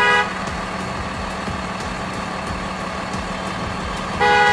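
Car horn blasts: one held blast ends just after the start and another begins near the end, over a steady vehicle engine hum.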